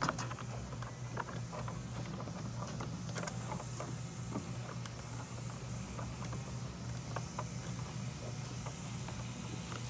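Hands working the plastic tail-light bulb socket and trim behind the trunk side panel of a 2016 Ford Focus SE: scattered light clicks and knocks over a steady low hum.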